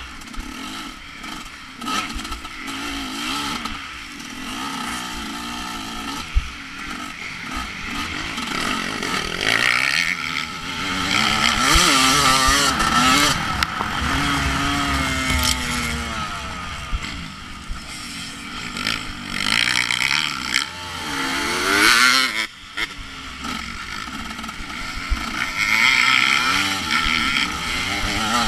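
Off-road motorcycle engine revving hard, its pitch rising and falling again and again, under a rushing noise with occasional sharp knocks.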